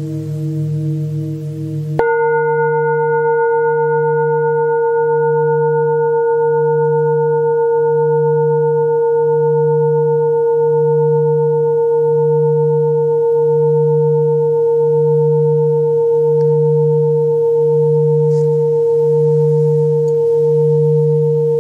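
Metal singing bowls ringing in a sustained, pure-toned chord with a slow wavering pulse, about three beats every four seconds. About two seconds in, the chord changes abruptly to a new set of tones that then holds steady without fading.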